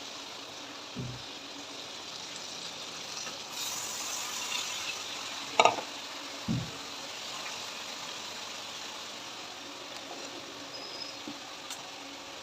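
Food frying with a steady sizzle. A sharp clank comes a little past halfway, and two dull thumps, one about a second in and one just after the clank.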